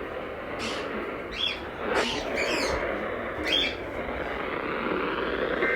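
Small birds chirping, a handful of short sweeping calls, over a steady hiss of background noise. Right at the very end a steady electronic two-tone burst begins.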